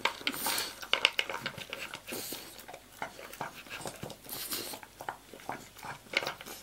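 A dog eating from a plastic slow-feeder bowl: many quick clicks and crunches of food and teeth against the bowl, with a hissy burst of breath every two seconds or so.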